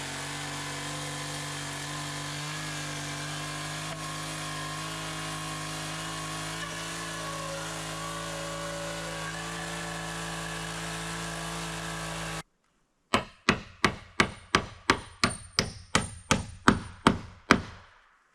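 A chainsaw running steadily at a constant speed for about twelve seconds, then cutting off abruptly. After a short gap, a hammer strikes a nail about fifteen times in quick, even blows, roughly three a second.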